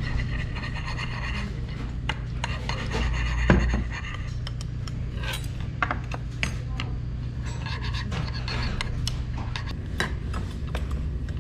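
Restaurant table clatter: short clicks and clinks of dishes, glass and cutlery, with rubbing and scraping against the table, over a steady low hum. One louder thump about three and a half seconds in.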